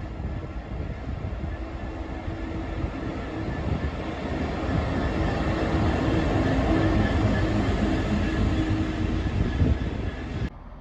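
GB Railfreight Class 66 diesel locomotive passing close by, its two-stroke V12 engine growing louder as it draws level, over a low rumble of wheels on the rails. The sound cuts off suddenly near the end.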